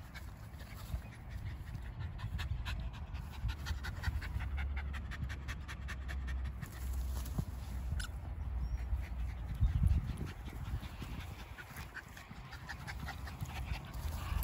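A small terrier panting rapidly, quick even breaths in a steady run that is clearest in the first half.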